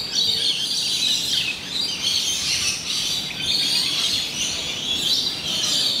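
A chorus of many birds chirping and calling at once, a dense, continuous high twittering with no single song standing out.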